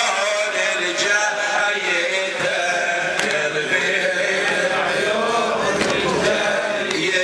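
Men's voices chanting a Shia Muharram lament (latmiya) without a break, led by a reciter on a microphone.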